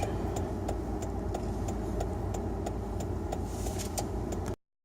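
Car running with a steady low rumble, with light, evenly spaced ticks about three times a second.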